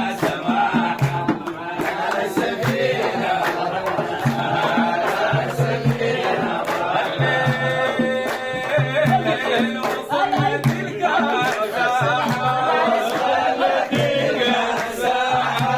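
Sudanese Sufi praise poem chanted by singing voices over a steady low beat.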